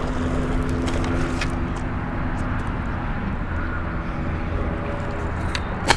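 Steady low engine drone in the distance, with a few faint clicks and a sharper click near the end; the sound then cuts off suddenly.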